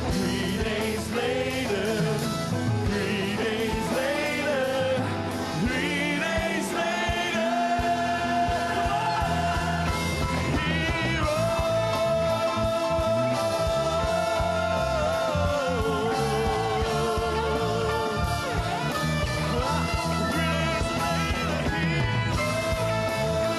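Live church praise band music: a male lead singer and backing singers hold long, wavering notes over electric and acoustic guitars, keyboard and drums.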